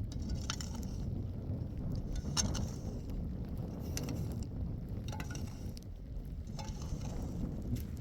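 Wind rumbling on the microphone, with scattered short crunches and clicks at irregular intervals.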